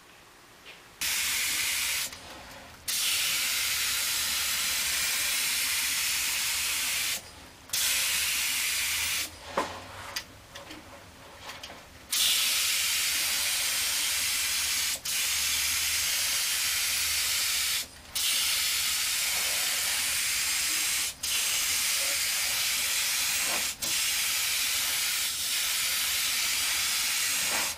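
Compressed-air gravity-feed spray gun spraying POR-15 rust-preventative paint in about eight passes: a steady, loud hiss of air and atomised paint that cuts off briefly between trigger pulls. A few small knocks fall in one longer pause before the halfway point.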